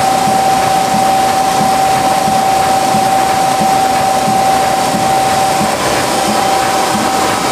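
Tymi Ustar-102 UV spot coating machine running: a steady whine over a rushing mechanical noise, with a soft knock repeating about twice a second.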